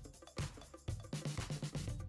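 Background music with a steady drum beat, about two beats a second, over a bass line.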